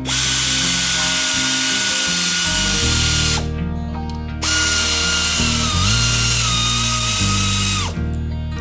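A power tool running twice, each time for about three and a half seconds: a loud hiss with a steady whine that steps down slightly in pitch during the second run and cuts off sharply. Background music plays throughout.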